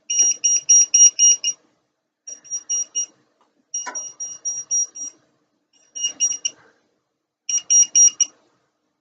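Electrical voltage tester beeping rapidly, about five high beeps a second, in five short runs with gaps between them. The beeping is the tester's signal that it senses live voltage. There is one click about four seconds in.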